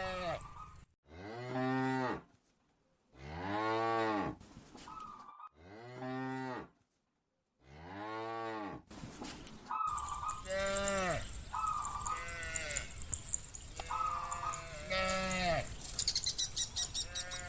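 Cattle mooing over and over: long calls that rise and fall in pitch, about one every two seconds, with abrupt silent gaps between the first few. Shorter, quicker moos come in the second half.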